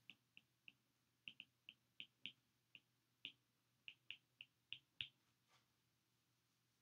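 Faint, sharp clicks of a stylus tip striking an iPad's glass screen during handwriting, about three a second in an irregular run that stops about five seconds in.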